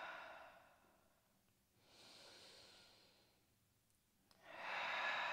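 A woman's slow, deep breaths: one fading out at the start, a softer one about two seconds in, and a longer, louder one beginning a little after four seconds in.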